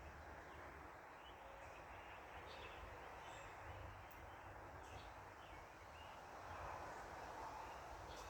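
Quiet backyard ambience: short bird chirps, several scattered through, over a faint steady hiss and a low rumble.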